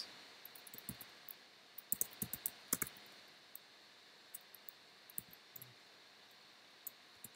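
Faint typing on a computer keyboard: a quick run of key clicks about two to three seconds in, then a few scattered single clicks.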